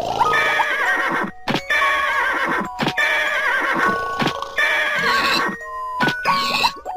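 Four quavering, animal-like calls, each about a second long, with short plinking tones between them.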